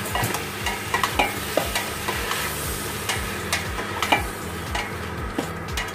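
A spatula stirring pork, onions and fresh tomatoes in a stainless steel pot as they fry, with a steady sizzle and irregular scrapes and knocks of the spatula against the pot.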